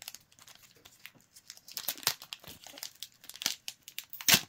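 Foil trading card pack crinkling in the hands, then torn open across the top with a loud rip about four seconds in.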